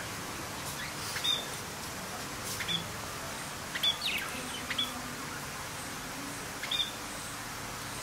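Budgerigars chirping: a handful of short, sharp, high chirps at irregular intervals over a steady background hiss.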